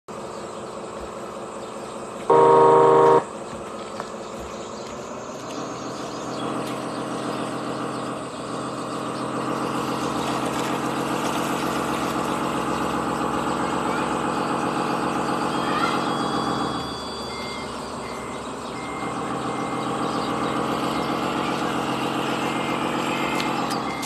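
RC hydraulic wheel loader: a short loud horn-like tone about two seconds in, then the steady pitched drone of its motor and hydraulic pump, which swells as the loader digs and lifts its bucket, dips briefly, and swells again. A faint high beep repeats evenly over the last several seconds.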